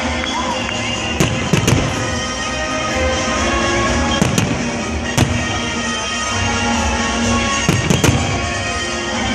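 Fireworks finale: aerial shells bursting with sharp bangs in clusters, about three bursts of several bangs each, over music playing throughout.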